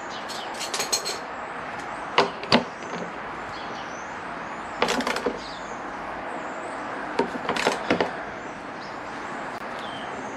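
An Allen key clicking against a motorcycle mirror's mounting bolt as the bolt is tightened: a few short clicks in small clusters over a steady background hiss.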